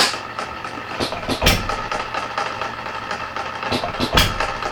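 Red Wing 1/3-scale model hit-and-miss engine, a single-cylinder engine with CDI ignition, running at about 230 rpm. It fires with a sharp bang three times, at the start, about a second and a half in and near the end, and coasts between firings with a light regular ticking, the uneven spacing of the firings being the hit-and-miss governor at work.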